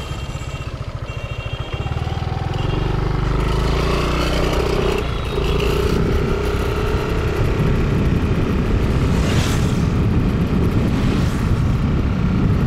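Small motorbike's engine running on the road, rising in pitch as it speeds up over the first few seconds, then holding a steady pitch, with road and wind rumble underneath.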